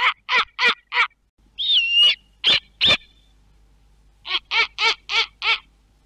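A bird calling in short, harsh notes about three a second: four at the start, two more just before the three-second mark, and a run of five near the end. About two seconds in comes one whistled note that drops in pitch.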